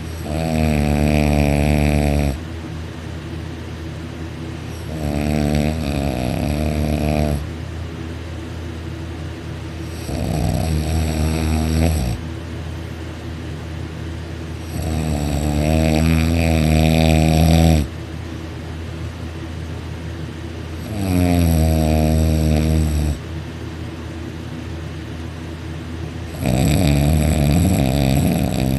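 A person snoring loudly with mouth open, the soft palate vibrating: six long snores, each two to three seconds, coming about every five seconds.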